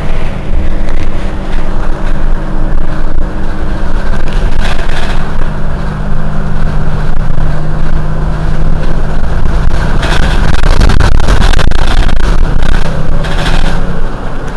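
Mercedes-Benz Citaro city bus engine idling at a standstill, a steady low hum; the sound changes and grows a little louder and rougher about ten seconds in.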